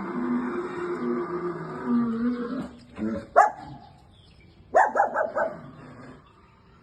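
A dog barking: one sharp bark about three seconds in, then a quick run of four or five barks, over a steady droning hum that stops after about two and a half seconds.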